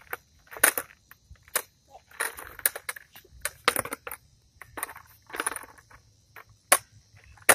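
Skateboard on concrete: a string of sharp clacks as the tail is popped and slapped down and the wheels land, with scuffing and short wheel rolls in between.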